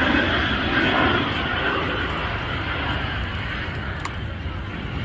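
Jet aircraft passing over during an airshow display: a loud rushing jet-engine noise that fades steadily as the jets fly away.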